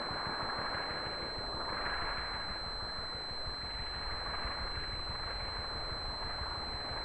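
Laser 180 four-stroke glow engine of a large-scale model Tiger Moth biplane running steadily at low throttle as the model lands and rolls out on grass.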